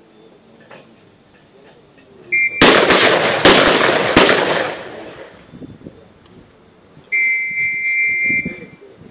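A volley of rifle shots from several shooters on a firing line: several loud cracks within about two seconds, each echoing off the range. A short steady high tone sounds just before the first shot, and a longer one of about a second and a half comes near the end.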